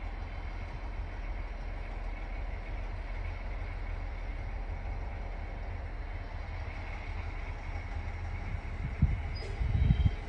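Distant DB class 216 diesel-hydraulic locomotive running at low speed while shunting over to couple onto wagons: a steady low rumble with a faint high whine. Two brief low thumps, about a second apart, near the end.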